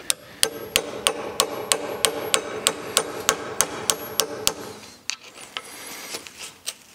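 A hammer taps a thin steel drift against the wheel-bearing seal in a classic Mini's cast front hub upright, held in a vise, to get under the seal. There are about fifteen evenly paced metallic taps, roughly three a second, with a ring after each, stopping about four and a half seconds in. A few lighter clicks follow.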